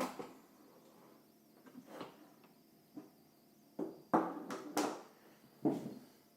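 Clicks and knocks of a coffee machine's parts being handled and taken apart, with a few sharper clacks in the second half.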